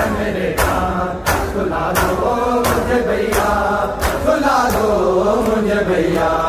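Male voices chanting a noha in a steady lament, with sharp slaps of many hands striking chests in unison (matam) about three times every two seconds.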